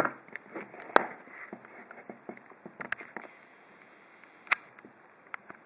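Small metallic clicks and light scraping of lock picks and a tension tool working the pins of a 6-pin pin-tumbler mortise cylinder. The clicks are irregular, with sharper ones about a second in, near three seconds and about four and a half seconds in.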